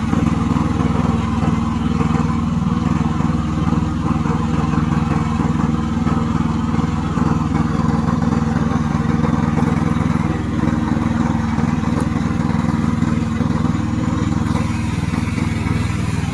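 Remote-control tracked slope mower's engine running steadily at a constant speed.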